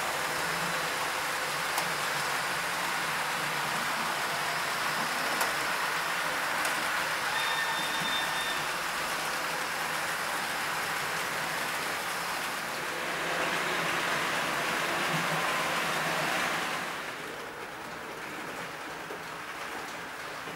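Model train running past: a model BLS electric locomotive and its passenger coaches rolling over the model track, a steady rushing rattle of wheels on rails and motor. It drops off about three-quarters of the way through as the last coach passes.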